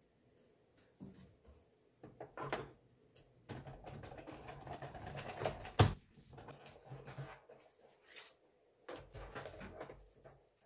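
Cuttlebug hand-cranked die-cutting machine being cranked, the die and paper sandwich grinding through the rollers, with one sharp click about six seconds in and scattered knocks around it.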